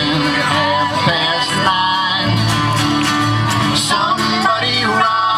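Acoustic folk-country band playing: strummed acoustic guitar over a steady bass line, with a melody line carried above.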